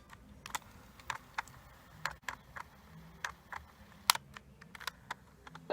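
Light, sharp clicks and taps, about a dozen at uneven intervals, from small hard parts of a Sony WM-D3 cassette recorder's mechanism being handled.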